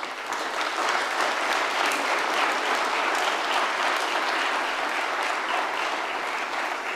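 A church congregation applauding: a steady round of clapping from many people in the pews.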